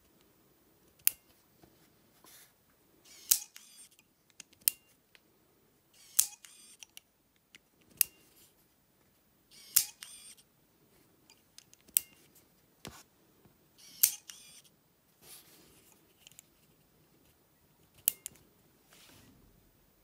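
Fingerprint padlock handled in the fingers: a string of sharp mechanical clicks every second or two, some followed by a short rattle, as the thumb works the sensor and the shackle is moved.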